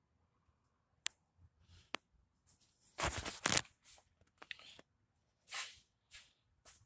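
Rustling and clicking from a handheld camera being moved: a couple of sharp clicks, then a loud rough rustle about three seconds in, followed by shorter scrapes.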